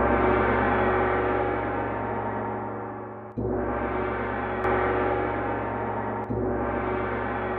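Deep, gong-like metallic ringing. It is struck twice, about three seconds apart, and each stroke rings on and slowly fades over a steady low hum.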